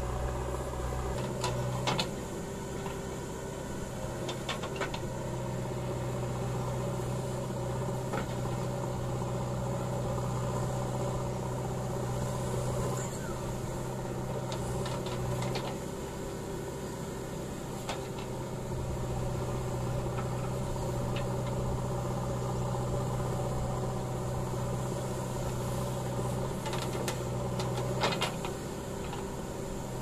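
JCB 3DX backhoe loader's diesel engine running steadily while the backhoe digs and swings, its note shifting briefly a couple of times, with a few short knocks scattered through.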